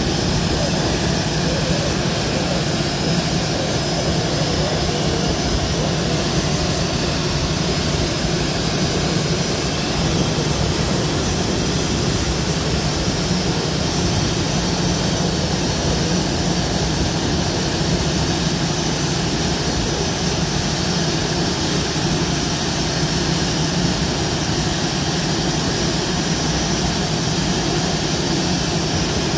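Rolls-Royce turbofan jet engine running steadily on the ground during an engine ground run after a borescope inspection: a constant low hum under a broad rushing hiss, holding the same level throughout.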